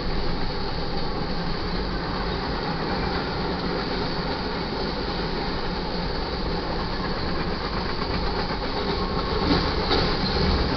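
Freight cars of a mixed freight train, covered hoppers and tank cars, rolling past at a grade crossing: a steady rumble of steel wheels on rail with clickety-clack over the joints, briefly louder with a few sharper clanks near the end.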